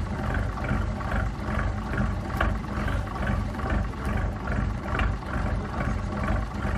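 The AEC AH-690 six-cylinder diesel of a 1957 Brill CD-52 bus idling through a straight pipe with the muffler removed: a steady, loud, low exhaust with an even pulsing beat.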